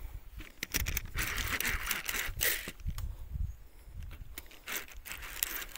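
Irregular rustling and crackling with scattered clicks, loudest in the first half, over a low rumble.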